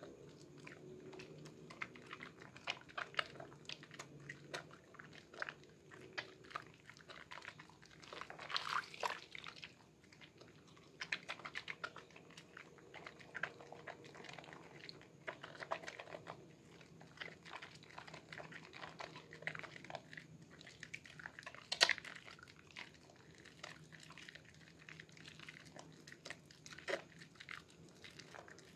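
A bar of Sehat red soap squeezed and rubbed between wet hands in a basin of soapy water: irregular wet squelching and crackling of lather, with one sharper snap about twenty-two seconds in.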